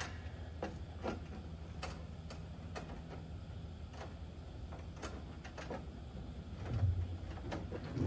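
Scattered light clicks and taps of small metal parts being handled as a surge protector's threaded nipple and lock nut are fitted through a knockout in a breaker panel, over a steady low hum. A soft low thump comes near the end.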